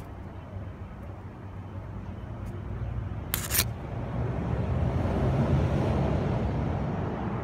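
Street traffic: a passing vehicle's engine and tyre noise that swells to its loudest about five to six seconds in. A short sharp hiss sounds a little past three seconds.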